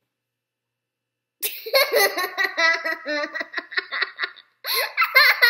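A young girl laughing, starting about a second and a half in, in quick repeated bursts.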